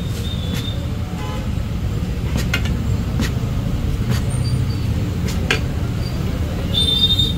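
Steel tyre lever clicking and scraping against a steel wheel rim as a car tyre's bead is levered off on a tyre-changing machine, over a steady low rumble. A brief high squeal comes near the end.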